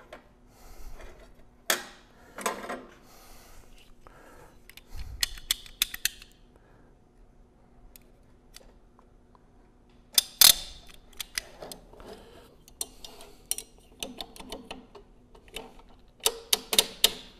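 Metal hand tools clicking and clattering on a workbench as snap-ring pliers are picked up and worked into a steel snap ring. There is a sharp clack about ten seconds in and a quick run of clicks near the end.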